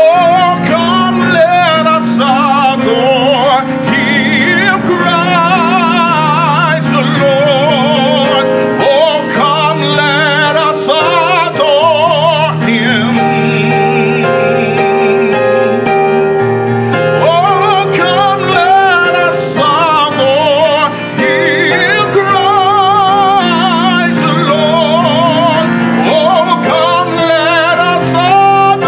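A man singing a solo in an operatic gospel style with a strong vibrato, over piano accompaniment.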